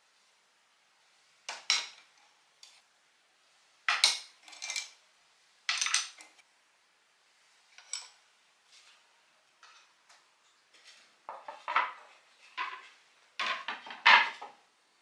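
Wooden spoons and spatulas clacking against each other as they are handled in a woven bamboo basket, in short clusters of clacks with quiet pauses between. Near the end, wooden plates knock together as they are stacked, the loudest clacks of all.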